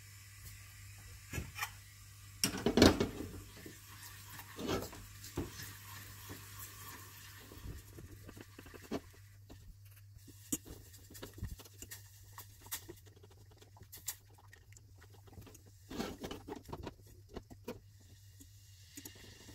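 Irregular light taps, clicks and rustling of things being handled, with a louder clatter about three seconds in and another cluster around sixteen seconds; a low steady hum underneath.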